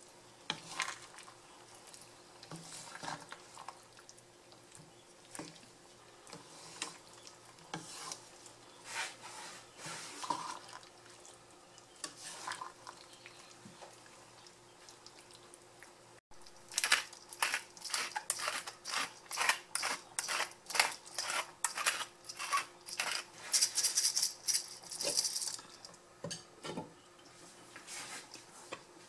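A wooden spatula stirs and scrapes through a thick stew in a pan, making scattered clicks and knocks. Past the halfway mark a pepper mill is cranked in quick, even grinding strokes for several seconds. A couple of soft knocks follow near the end.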